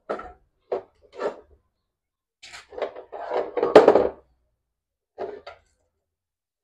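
Hand tools and metal parts clinking and knocking against a generator's metal alternator end housing as a socket wrench is worked on a bolt: a few separate knocks, a busier stretch of rattling and clatter around the middle that is the loudest part, and two more knocks near the end.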